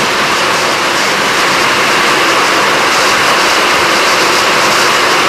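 Torrential rain pouring down in a strong, gusty wind: a steady, loud hiss of rainfall.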